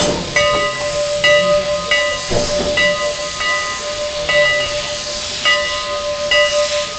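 Steam locomotive's bell ringing steadily, a little more than once a second, over a constant hiss of steam.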